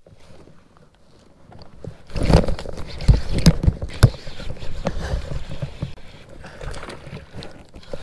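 Handling noise right at the chest-mounted camera's microphone: rubbing and rustling with a few sharp knocks about three and four seconds in, as hands and rod move close to it.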